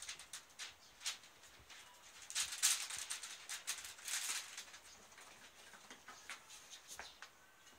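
Kittens at play: paws pattering and scrabbling, with rustling of newspaper and quilt. It comes as scattered light clicks, with two denser flurries of rustling about two and a half and four seconds in.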